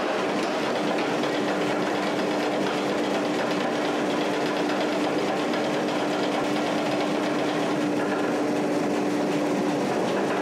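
Power hammer running, its dies striking a red-hot bar in a rapid, steady rhythm to draw it down round, with a steady hum underneath that stops near the end.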